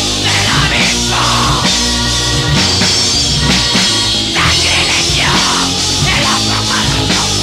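Black metal band recording playing continuously at a loud, steady level.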